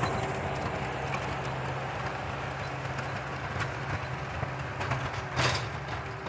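Skid steer engine running steadily, with a few faint knocks and a brief louder noise about five seconds in.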